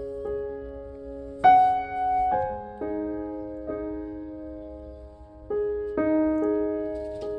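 Background piano music: single notes and chords struck about a second apart and left to ring.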